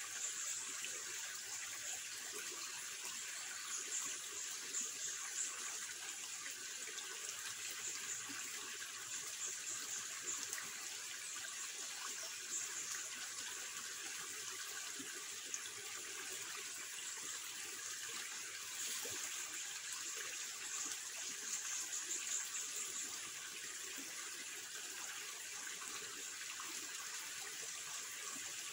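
Forest ambience: a steady high-pitched hiss with no distinct calls or events. Its highest band swells and fades every few seconds.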